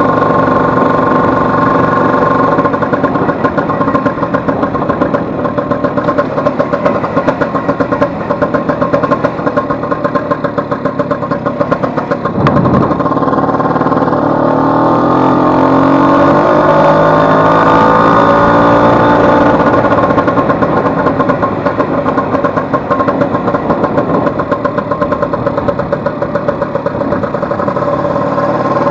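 Vespa 150's two-stroke single-cylinder engine running under way on a road test ride. About twelve seconds in the revs drop briefly as for a gear change, then the pitch climbs steadily as the scooter picks up speed.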